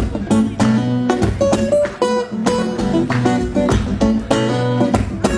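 Acoustic guitar played live, strummed chords and plucked notes in an instrumental passage with no singing.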